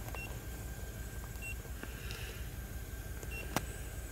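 Short electronic beeps from a handheld iCarsoft automotive scan tool as its buttons are pressed while scrolling through menus, three single beeps at uneven intervals with a sharp click near the end, over a steady low rumble.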